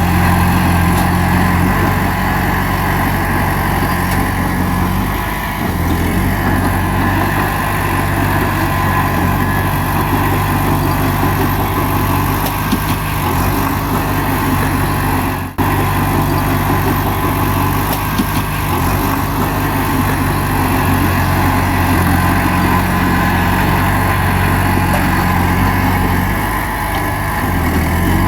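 Bulldozer's diesel engine running steadily under work, with small shifts in engine note as the load changes. The sound breaks off for an instant about halfway through.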